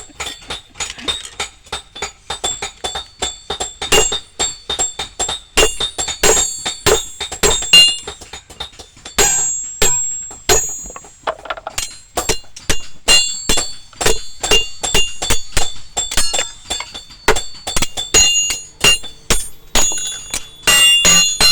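A blacksmith's hammer striking metal on an anvil in a quick, uneven run of blows, two to four a second, each leaving a high metallic ring.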